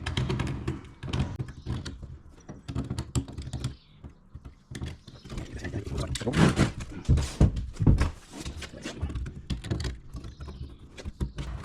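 Irregular knocks, clicks and rubbing from hands and tools working a rubber grommet and pipe fitting into a plastic tank, with several louder thumps about halfway through.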